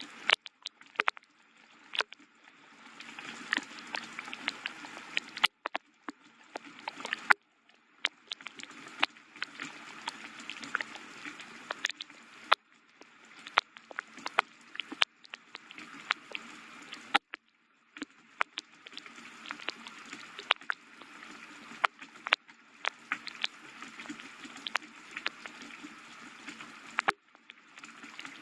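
Gentle rain falling, with many close drops ticking sharply over a soft hiss. The hiss cuts out abruptly to near silence several times and then returns.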